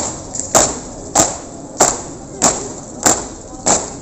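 A steady marching beat of sharp, even thuds, about three every two seconds.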